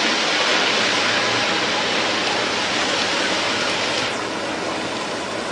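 Landslide: rock and earth pouring down a hillside, a steady rushing noise that eases slightly about four seconds in.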